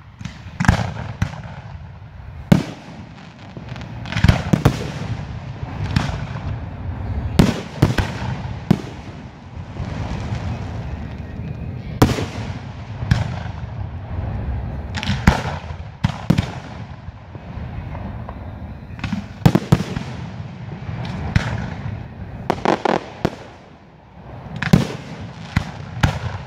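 Aerial fireworks shells launching and bursting: a run of sharp booms every second or two, some in quick clusters, over a low rumble.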